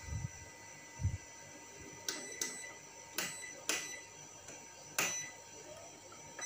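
A series of sharp clicks and light knocks, about seven, unevenly spaced, over a faint steady high whine.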